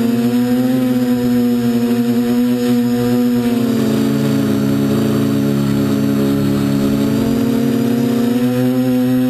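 F450 quadcopter's brushless motors and propellers buzzing steadily in a hover, heard close up from the camera on the frame. From about four to eight seconds in, the pitch dips slightly and splits into several tones as the motors change speed, then settles back.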